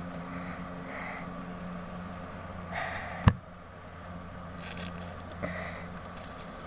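A person with a blocked nose makes several short, breathy nasal breaths, trying to clear it. A single sharp click about three seconds in is the loudest sound, over a steady low hum.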